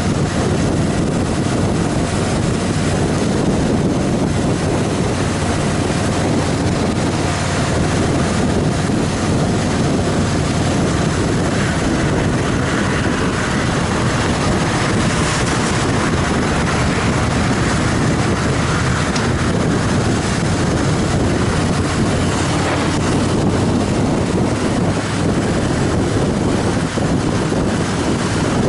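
Harley-Davidson Fat Boy Lo's V-twin engine running steadily at cruising speed, with wind rushing over the microphone.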